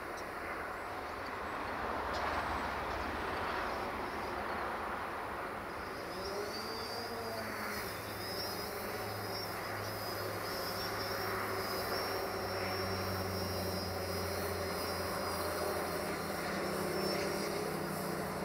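Distant diesel locomotive engine hauling a passenger train, heard across the water as a steady low drone with a thin high whine above it, growing in from about six seconds in.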